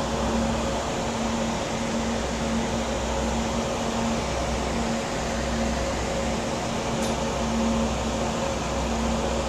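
Steady mechanical hum over a low rumble, even and unchanging, of the kind made by a ventilation fan or machinery running behind glass.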